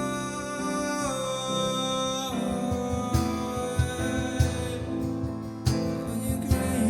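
Worship music: guitar with held notes and some singing, a note gliding down about a second in, then a steady low beat entering about two and a half seconds in.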